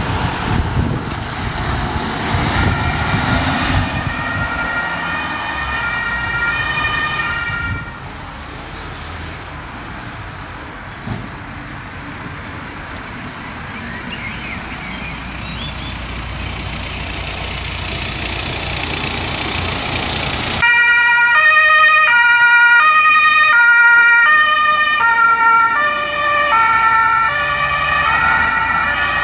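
Emergency doctor's cars setting off on calls. First a Mercedes Vito's engine as it pulls away, with its German two-tone siren coming on about four seconds in. After a break, a quieter stretch of car engine slowly building, until a BMW X3's two-tone siren starts suddenly and loudly about two-thirds of the way through, stepping between its two pitches about every half second.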